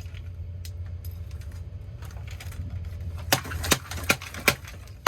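Plastic parts of a broken alarm clock knocking: a few faint clicks, then about four sharp knocks in quick succession from around three seconds in, over a steady low hum.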